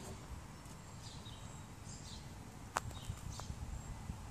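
Birds chirping in short, falling calls over a low rumble, with one sharp click a little after halfway.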